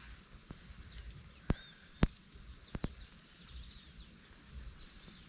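A few sharp knocks: two loud ones about half a second apart, then a quick pair just under a second later. Birds chirp faintly in the background.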